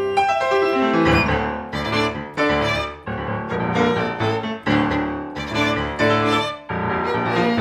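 Violin and grand piano playing an instrumental arrangement of an electronic dance track. The pitch rises at the start, then strong rhythmic chords with a low bass line come in about a second in.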